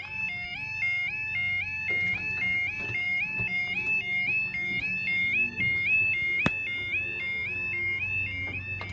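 Level crossing warning alarm sounding: an electronic two-tone yodel that steps up and down about four times a second, over a low steady hum, with a single sharp click a little past the middle.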